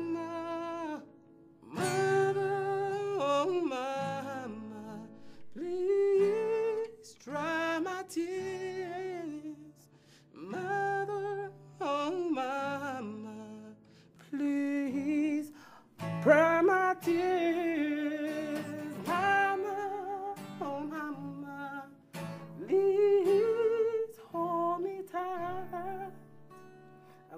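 A slow song: a solo voice holds long wavering notes in phrases a few seconds long, separated by short pauses, over guitar accompaniment.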